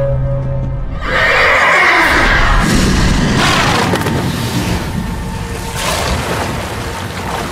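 Horse whinnying loudly: a long call starts about a second in and trails off over several seconds, with more whinnying later on.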